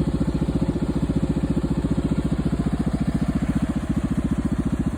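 ATV engine running steadily at idle or low speed, an even rapid pulsing with no revving.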